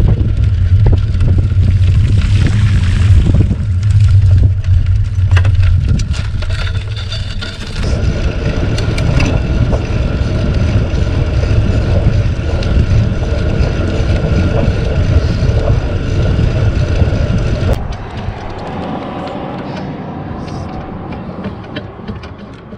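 Wind buffeting the microphone of a bicycle-mounted camera and tyres rolling along, with scattered gravel clicks in the first several seconds. The noise changes about eight seconds in and drops sharply near the end.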